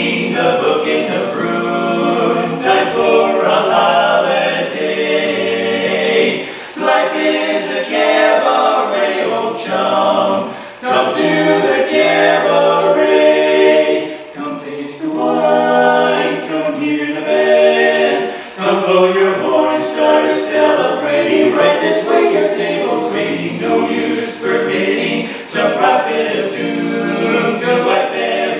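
A male barbershop quartet singing a cappella in four-part harmony, phrase after phrase with short breaths between.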